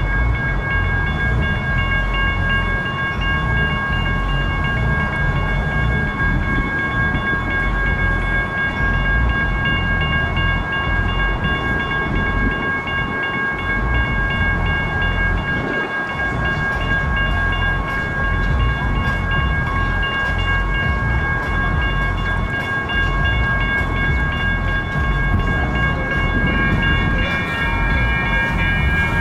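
Railroad crossing bells ringing steadily over a low rumble, with a second set of bell tones joining near the end.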